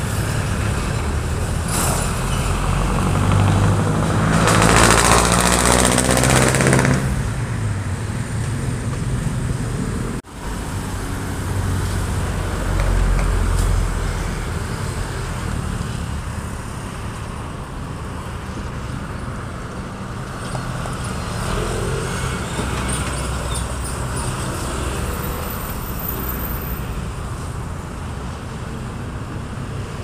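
Road traffic rumbling steadily, with a heavy vehicle passing loudly about three to seven seconds in, carrying a strong hiss, and another low swell of engine noise a little later.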